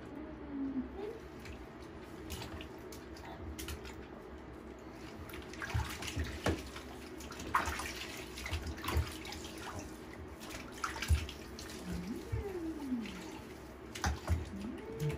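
Water splashing and lapping in a plastic infant bathtub as a baby is washed, with irregular small splashes. A baby coos briefly a few times, near the start and again near the end.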